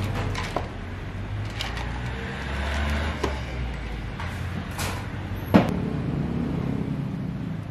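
Ice cubes clattering into plastic cups, with scattered clicks and one sharp knock a little past halfway, over a steady low hum.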